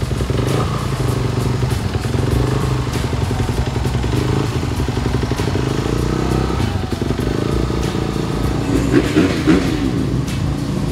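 Kawasaki motocross bike's engine running steadily on the stand in the pit, being warmed up by the mechanic.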